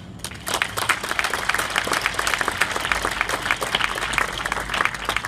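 An audience applauding: many hands clapping together, starting about half a second in and dying down near the end.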